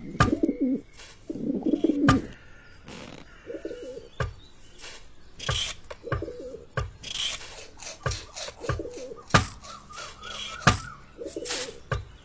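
Rock pigeons cooing, a low burbling coo repeating about every two seconds, with scattered sharp clicks and knocks between the calls.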